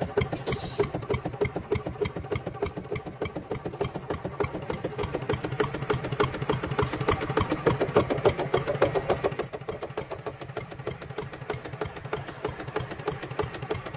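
Miniature RC toy tractor running with a fast, even ticking chug.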